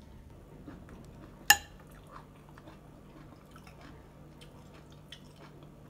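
Eating from a plate: a fork clinks sharply on the plate once, about a second and a half in, among soft chewing and small clicks, over a low steady hum.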